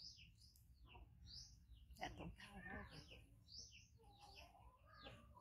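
Faint chirping of small birds: short, high, falling notes scattered irregularly, over otherwise near-quiet room sound, with a faint murmur of a voice about two seconds in.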